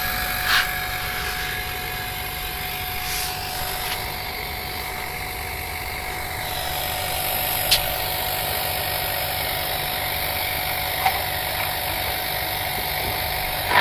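Refrigerator hermetic compressor running on the bench with a steady hum, wired straight to the mains, its suction pipe open before oil is drawn in. A few light clicks are heard over it.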